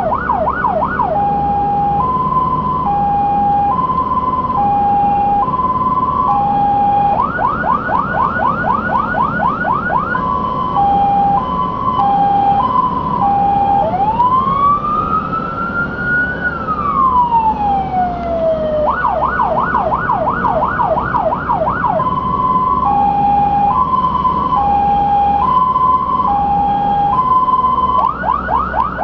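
Fire engine's electronic siren cycling through its tones: bursts of fast yelp sweeps alternating with a two-tone high-low pattern, with one slow wail rising and falling in the middle. The truck's engine runs underneath.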